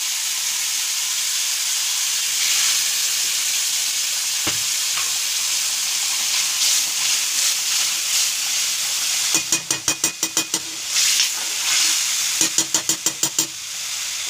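Kadhi mixture of buttermilk and gram flour sizzling and hissing in hot oil in a kadai, just poured over the tempered spices. Near the end a steel ladle scrapes quickly around the pan in two short spells, about seven strokes a second.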